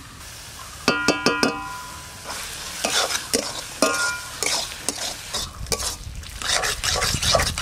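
A metal spatula knocks a few times against a metal karai with a ringing clang about a second in. It then scrapes round the pan, stirring a thick banana-flower curry that sizzles lightly as it fries.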